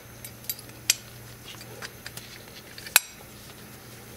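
Small clicks and clinks of mountainboard truck parts being handled and pushed together: bushings, hanger and kingpin, with a sharp click about three seconds in.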